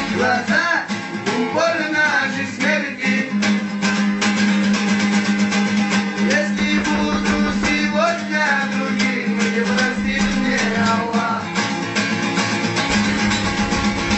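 Acoustic guitar strummed in a steady rhythm, with a voice singing over it and sliding up and down in pitch in places.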